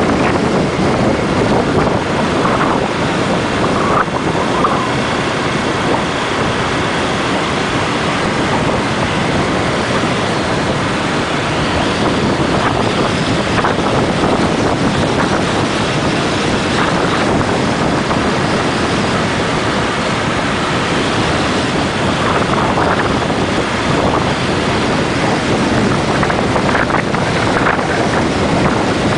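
Steady rush of wind over the microphone from a moving vehicle, mixed with road and engine noise.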